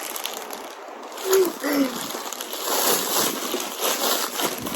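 Plastic packaging rustling and crinkling as a parcel of fidget toys is opened, with a brief voice sound a little over a second in.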